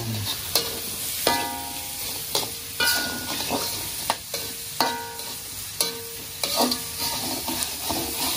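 Spice paste sizzling in hot oil while a metal spatula stirs it, scraping and knocking against the metal pan about once a second with short ringing clangs.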